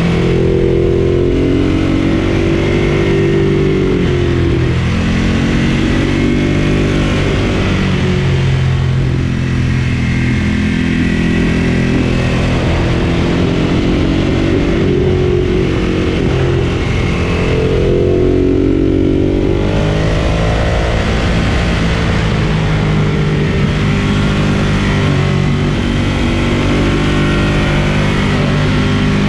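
Ducati Monster 1200 S's L-twin engine running under load, its pitch rising and falling again and again as it accelerates and eases off.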